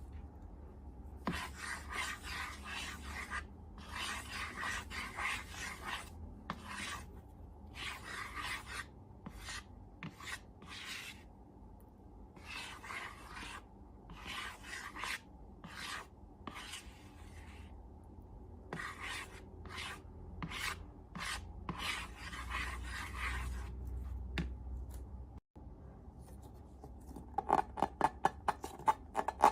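Repeated rubbing or scraping strokes, each lasting a second or two, with short pauses between them. Near the end a quick run of sharp clicks follows.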